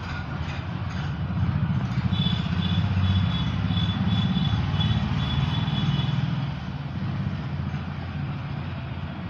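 A steady low engine rumble, like a motor vehicle running nearby.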